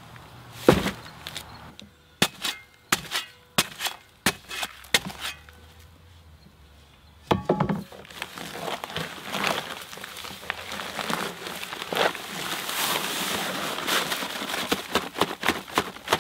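A heavy paper bag of dry concrete mix thuds into a plastic wheelbarrow, followed by a run of sharp knocks and another hard knock. Then comes a long rustling hiss as the paper bag is torn open and the dry mix pours and slides out.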